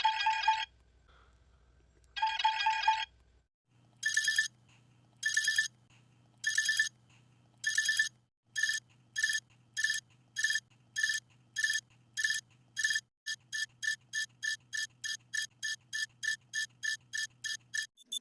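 Electronic ringtone-like sound effect played in short rings: two lower-pitched rings, then a higher ring repeated faster and faster, ending at about three rings a second.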